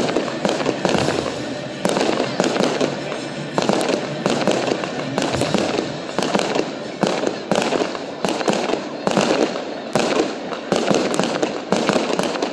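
Aerial fireworks bursting in a rapid, continuous barrage: sharp bangs several times a second with crackling between them.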